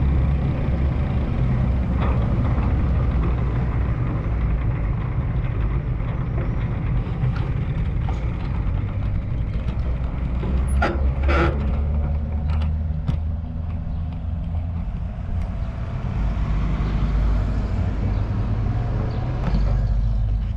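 Steady low rumble of motor vehicle traffic, with a brief high squeal a little past the middle and a few sharp clicks.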